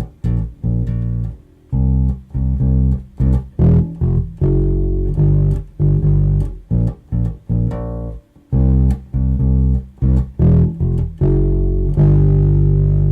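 Bass guitar playing a rhythmic line on the root notes G, B flat and C, with a walk-up from open E through F and F sharp to G in the last measure. The final note is held ringing for about a second and a half near the end.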